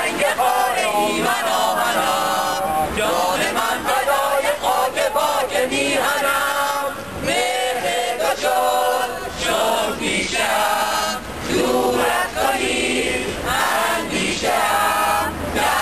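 A crowd of demonstrators singing together, phrase after phrase with short breaks between lines.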